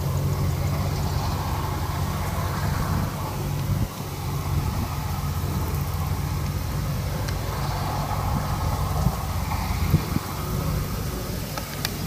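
Small diesel farm tractor engine running steadily while pulling a trailer loaded with sacks of rice across a field.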